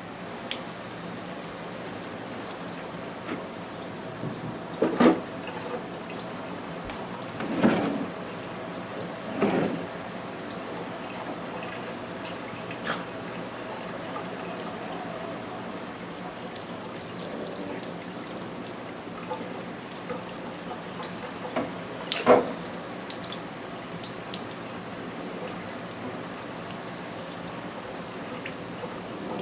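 Kitchen tap running steadily into a sink as bee balm leaves are rinsed under the stream, with a handful of short, louder knocks or splashes scattered through.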